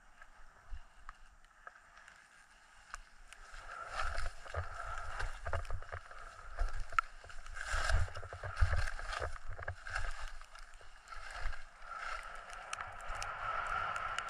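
Ski or snowboard edges scraping and hissing over packed snow on a downhill run, with gusts of wind buffeting the microphone. The run is quiet for the first few seconds, then grows louder from about four seconds in as the scraping picks up.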